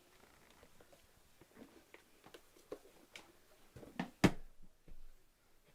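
Scattered clicks and knocks from a Bissell PowerLifter upright vacuum being handled, as its dust-bin release is worked, with one sharp knock about four seconds in the loudest.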